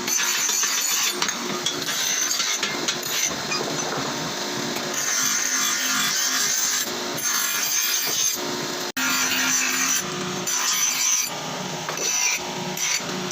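Continuous rough scraping of a hand tool working a workpiece, like sawing or filing, with a brief gap about nine seconds in.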